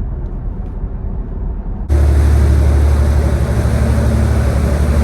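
A low steady vehicle rumble, then an abrupt cut about two seconds in to the louder, steady low drone of a sportfishing boat's engine running while the boat trolls offshore.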